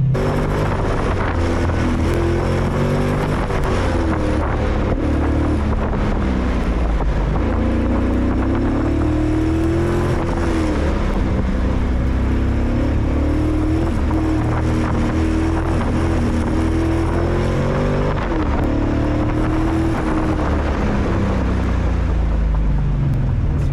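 A 1996 Corvette's LT4 V8 running hard on an autocross run, its revs rising and falling repeatedly through the course.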